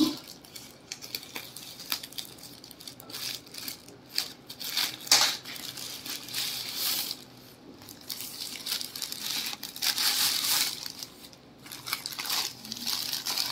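Plastic courier mailer bag crinkling and rustling in irregular bursts as it is cut open with scissors and the plastic-wrapped packages inside are pulled out.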